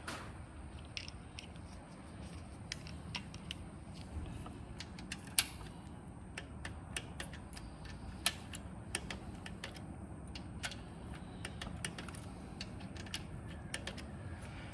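Irregular sharp clicks of a hand torque wrench ratcheting and clicking off as the timing chain guide and tensioner bolts are tightened to 89 inch-pounds, with one louder click about five seconds in.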